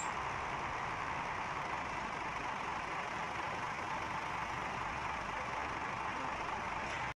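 Akechi Railway diesel railcar idling, a steady engine drone.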